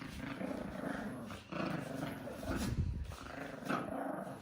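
Maltese puppies growling in play, a string of low rasping growls with short breaks between them.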